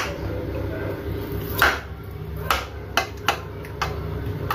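Metal spoon clinking against a plate as it scoops soft ice cream: about five sharp clinks at uneven intervals in the second half.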